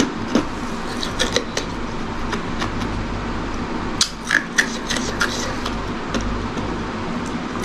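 Soft mouth clicks and smacks of someone chewing and eating with her fingers, a few about a second in and a cluster around four to five seconds in, over a steady background hum.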